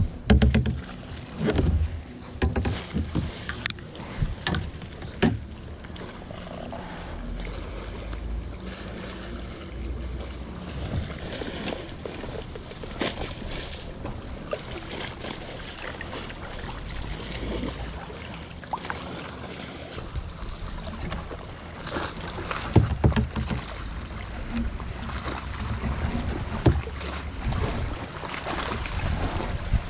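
Kayak being paddled: the paddle splashing and swishing through the water, with scattered knocks and clicks of paddle and gear against the hull.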